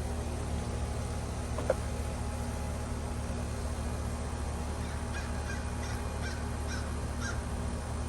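Goodman GSZ14 heat pump outdoor unit running through its defrost cycle with a steady low hum. A single click comes near the start, and in the second half a flock of geese honks about six times in quick succession.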